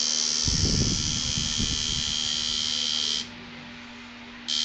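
Tattoo machine buzzing steadily as the needle works into the skin, cutting off a little past three seconds in and starting again near the end. A low rumble of handling noise comes about a second in.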